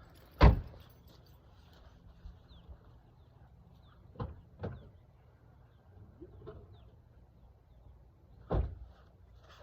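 Gear being handled and stowed around a vehicle: one loud thump about half a second in, two softer knocks around four seconds in, and another knock near the end.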